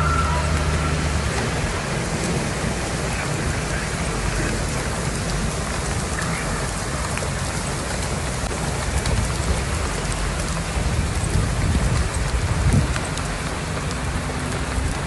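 Heavy rain pouring steadily onto wet paving, a dense, even hiss, with an uneven low rumble underneath.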